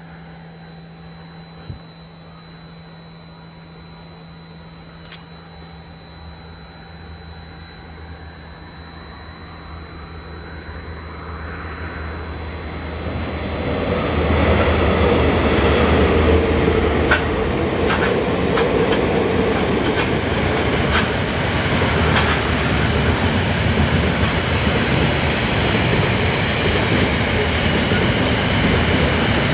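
A diesel-hauled freight train led by KiwiRail DL-class locomotives approaches, growing steadily louder over about fourteen seconds. It then passes close by as a loud, steady rumble of container wagons, with sharp wheel clicks over the rail joints.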